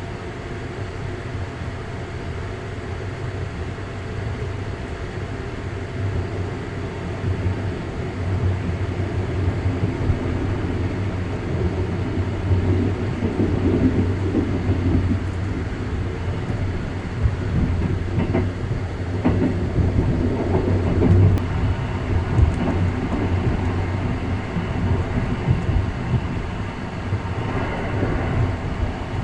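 A JR 285 series sleeper electric train running at speed, heard from on board: a steady low rumble of wheels on rail that grows louder in the middle, with a few brief clatters.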